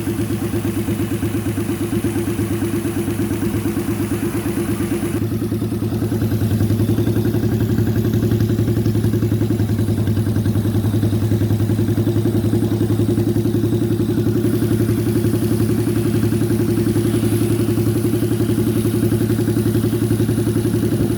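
Custom motorcycle's 1000cc car engine idling steadily. About five seconds in the sound shifts, losing some of its hiss and growing a little louder and deeper, then holds steady.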